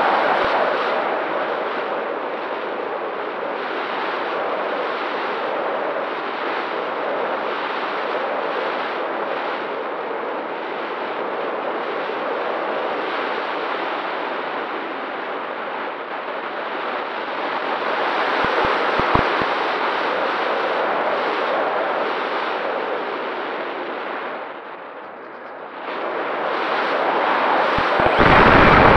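Rushing wind and airflow buffeting the nose-mounted camera of an Easy Glider Pro RC glider as it glides with its motor off and folding propeller folded. The noise dips briefly, then near the end the electric motor starts, the propeller unfolds and the noise swells louder.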